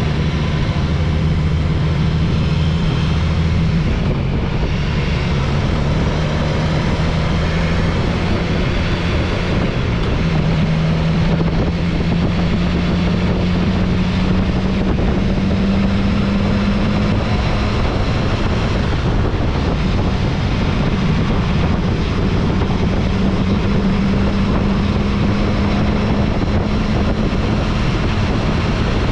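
Motorcycle engine running on the move, its pitch climbing slowly and dropping back several times as the revs change.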